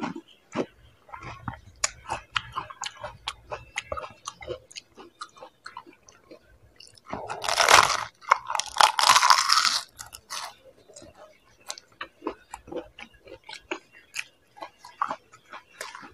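Close-up sounds of panipuri being eaten: crisp puri shells cracking and crunching, with wet chewing in between. About halfway through come two louder rushing sounds, each about a second long.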